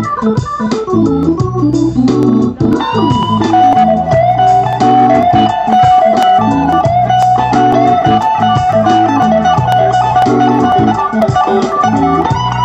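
Live rock band in an instrumental break: electric guitar and organ-like keyboard over a steady bass line. A quick run of notes gives way, about three seconds in, to one long held high note with a slight waver.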